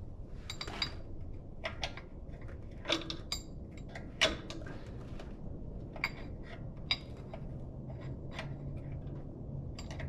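Small metal hub parts being handled and set down: about a dozen light clinks and taps, spread irregularly over several seconds, over a steady low hum.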